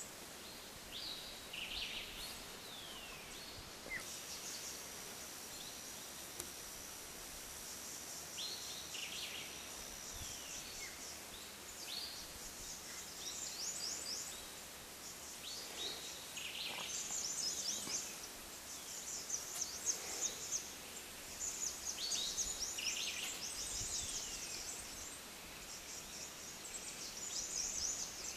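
Wild birds calling and singing over a steady outdoor hiss: repeated short down-slurred whistles throughout, and from about halfway on a busy run of fast, high chattering notes. A thin, steady high tone holds for several seconds early on.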